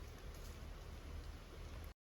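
Steady, faint rush of water noise, with a few faint ticks, cutting off abruptly just before the end.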